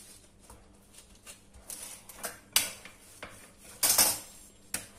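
A few sharp knocks and clatters on a granite countertop, the loudest cluster about four seconds in, as a wooden rolling pin and a piece of dough are handled.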